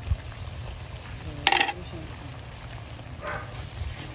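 Tilapia in coconut milk simmering and sizzling in a coated wok, stirred with a cooking utensil that gives a loud short scrape or clink about a second and a half in and a softer one near the end. A steady low hum runs underneath.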